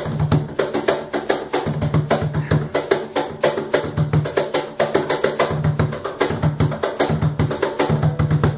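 Pithy cajón played by hand in a fast, continuous rhythm: sharp slaps on the playing face interleaved with recurring deep bass strokes.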